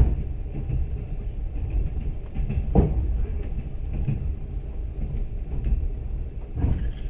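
Passenger train running, a steady low rumble of wheels on track heard from inside the carriage, with a few short knocks, the sharpest right at the start.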